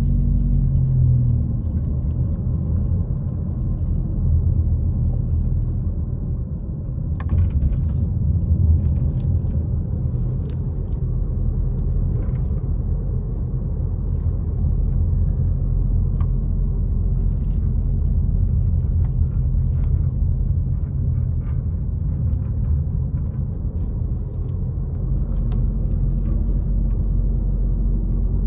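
Car driving, heard from inside the cabin: a steady low rumble of engine and road noise, with a few faint ticks and knocks.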